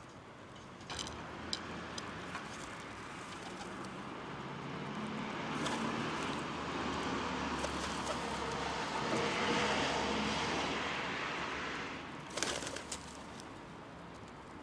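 A motor vehicle passing, its noise swelling over several seconds and then fading, with a few sharp taps before and after.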